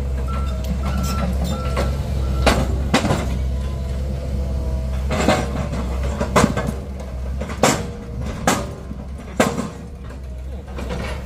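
Heavy diesel recovery machine running steadily, its reversing alarm beeping for the first second and a half and then stopping. About seven sharp knocks or clanks follow at irregular intervals.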